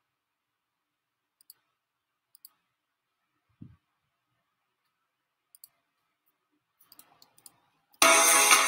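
A few faint, sparse clicks from a computer being operated, with one soft low knock about three and a half seconds in. About eight seconds in, loud music starts abruptly as a cartoon video begins playing.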